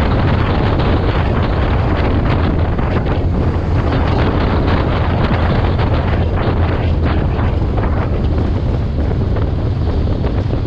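Heavy wind noise buffeting the microphone of a moving vehicle, with a steady low drone underneath.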